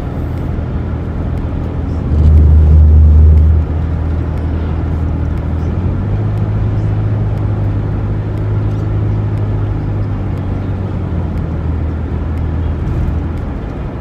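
Road and engine noise inside the cabin of a red Toyota minivan being driven: a steady low drone. About two seconds in it swells into a louder low rumble for about a second and a half, then settles back.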